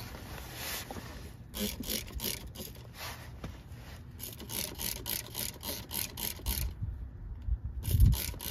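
Trigger spray bottle squeezed rapidly, about three to four hissing squirts a second, misting water onto a car tyre to check for an air leak. The squirts pause for about a second near the end and then resume, with a low thump just before they start again.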